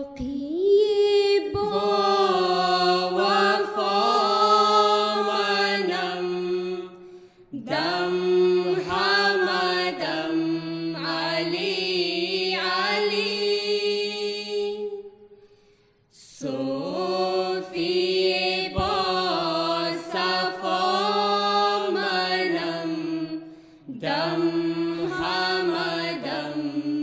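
Devotional vocal chant: slow, long-held sung phrases that sweep gently in pitch, in four phrases separated by short pauses.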